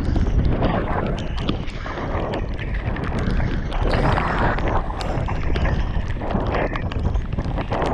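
Wind buffeting a helmet-mounted action camera's microphone as a mountain bike descends a wet dirt trail at speed, with tyres on the mud and frequent small clicks and rattles from the bike.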